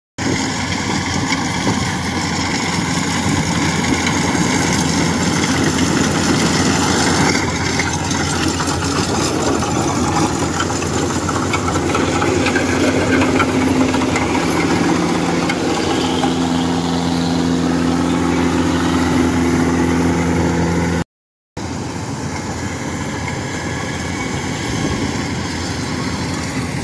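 Rice combine harvester running close by as it cuts rice, a dense steady engine-and-machinery noise. It cuts out for a moment about three-quarters of the way through, then carries on.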